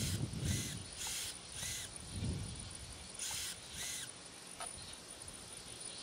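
Model helicopter's servos whirring as they are swung back and forth, in short bursts that rise and fall in pitch about every half second, with a pause in the middle. They move smoothly, a sign the servos are working after years in storage.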